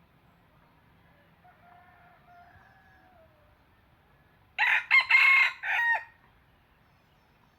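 Red junglefowl rooster crowing: a faint crow about a second and a half in, then a loud, short crow of three or four clipped syllables near the middle.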